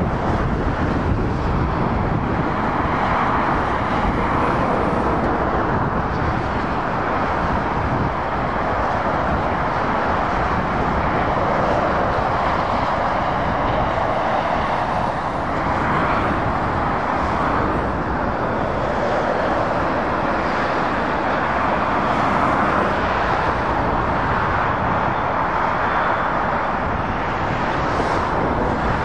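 Steady traffic noise from lorries and cars on a dual carriageway: tyre and engine noise that swells and fades every several seconds as vehicles pass.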